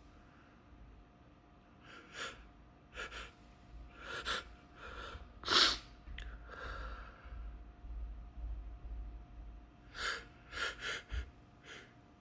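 A man's sharp sniffs and gasping in-breaths as sneeze powder irritates his nose, building up to a sneeze, with one louder burst about five and a half seconds in.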